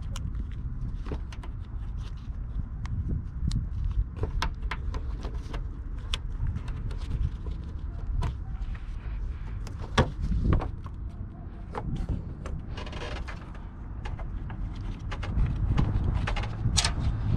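Scattered clicks and knocks of tools and car parts being handled during repair work, over a steady low rumble, with a short rasping sound about two-thirds of the way through.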